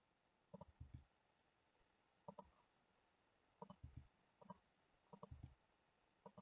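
Faint clicking of a computer mouse button, each click a quick press-and-release pair with a dull thump, about six times at irregular intervals.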